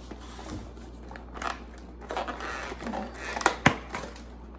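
Paper takeout bag and cardboard takeout box being handled and pulled open: rustling and scraping, then two sharp snaps about three and a half seconds in as the box opens.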